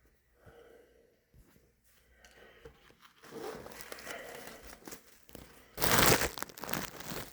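Packing material being handled and pulled about, rustling and crinkling, quiet for the first few seconds and loudest in a brief burst about six seconds in.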